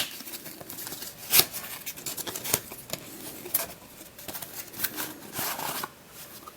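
Plastic twisty puzzles being handled, giving a few sharp clicks and clacks about a second apart, with faint rustling between.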